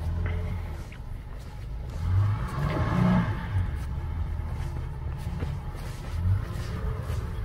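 Jeep Grand Cherokee engine revving in surges under load as it climbs a snowy slope in four-wheel drive, with the tyres churning through the snow.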